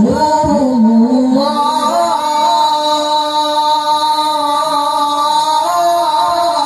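A male qari reciting the Quran in the melodic tilawah style into a handheld microphone: a brief ornamented rise, then one long held note in a strong full voice.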